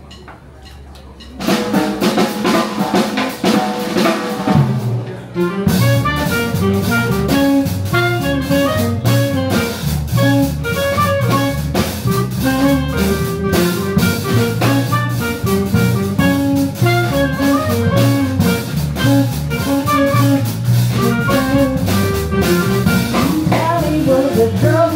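Live swing band playing an instrumental intro in 1940s big-band style: clarinet lead over electric archtop guitar, upright bass and a swinging drum kit with rimshots. The band comes in about a second and a half in, after a moment of quiet room sound.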